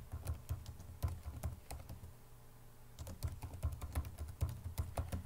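Typing on a computer keyboard: a run of quick keystrokes that thins out for about a second midway, then picks up again.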